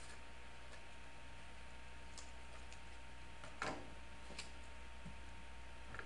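Scissors snipping through paper: a handful of short, scattered snips, the loudest about three and a half seconds in.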